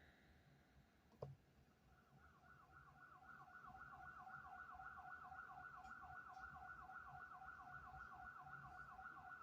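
Faint electronic siren sound effect from an Akai MPK Mini Play keyboard. It is a rapid wail repeating at about four to five short falling sweeps a second, starting about two seconds in.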